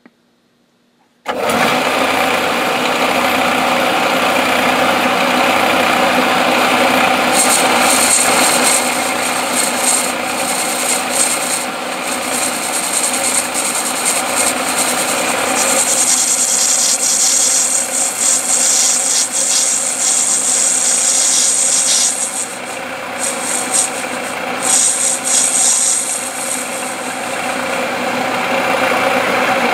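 Metal lathe starting up about a second in and then running through a finishing cut on a brass gate-valve stem, the tool shearing brass chips. There is a steady machine hum under a high cutting hiss that swells and fades several times over the cut.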